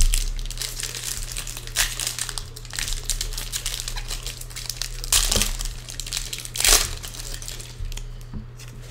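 Foil trading-card pack wrapper crinkling and tearing as it is opened by hand, with two louder crinkles about five and seven seconds in.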